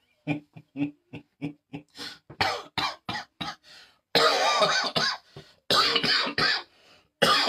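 A man's coughing fit: a quick run of short bursts, then several long, harsh coughs. He is ill with COVID-19.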